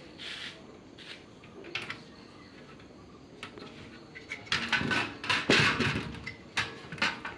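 Thin stainless steel tubes clinking and rattling against each other and the steel frame as they are shifted by hand: a few light clicks, then a quick run of louder metallic knocks about halfway through.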